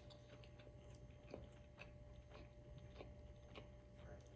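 Faint chewing close to the microphone: soft, irregular wet clicks of a mouth working on food.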